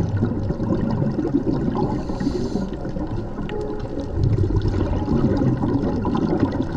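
Underwater noise recorded on a scuba dive: a steady low rush of water, with a short hissing burst about two seconds in, like a diver's exhaled bubbles from a regulator.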